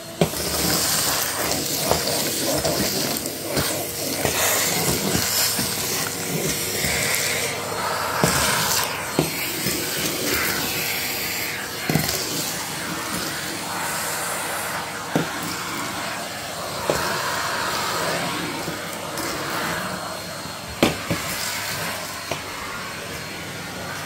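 Numatic Henry canister vacuum cleaner running steadily as its wand sucks up crumbs from a wooden floor. Occasional sharp clicks sound through it.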